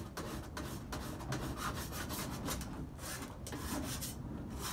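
Small triangular file rasping along the rough edge of a sled's quick-change runner, short back-and-forth strokes about three a second, with a couple of brief pauses. The filing smooths a rough edge to restore a clean edge on the runner.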